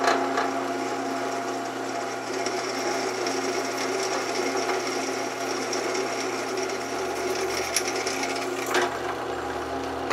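Drill press running with a steady hum while its oiled bit bores through a piece of metal angle.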